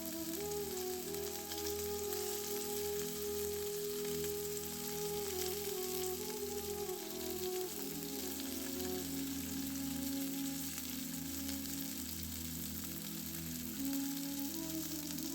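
Cauliflower pieces frying in hot oil in a kadhai, a steady sizzle throughout. A background music melody runs underneath.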